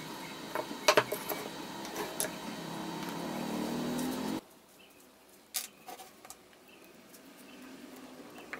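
Wooden boards handled and set down on a wooden workbench: a few sharp clicks and knocks, the loudest about a second in, over a steady background hum that cuts off abruptly about halfway through. After that come a few fainter clicks.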